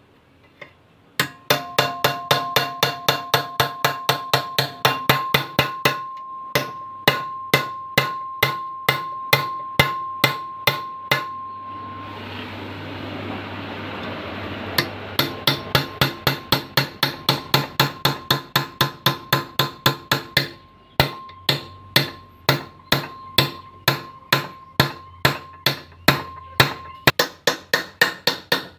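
Small hammer rapidly striking a chisel against the steel housing of a Suzuki Carry control-arm ball joint held in a vise, about four ringing metal-on-metal blows a second, to open up a worn, loose ball joint for rebuilding. The blows stop for a few seconds midway under a steady rougher noise, then resume.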